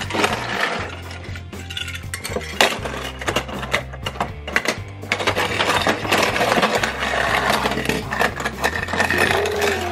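Small die-cast toy cars clinking and clattering against each other and a plastic toy track as they are pushed and crashed together, many quick clicks in a row, over background music.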